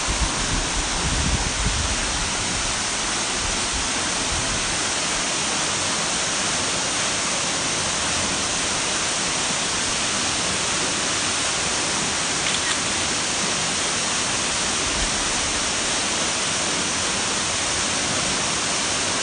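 Waterfall rushing in a steady, unbroken roar of falling water, with a few low bumps in the first couple of seconds.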